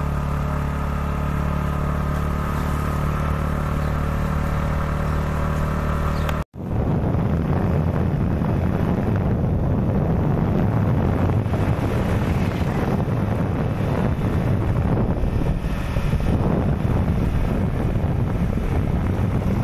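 Motorbike engine running steadily under way, an even hum. After a sudden cut about six seconds in, wind buffets the microphone over the engine noise as the bike rides on.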